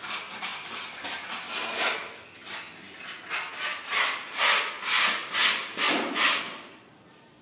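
Repeated rasping strokes of something being rubbed by hand, about two a second, growing louder in the second half and stopping shortly before the end.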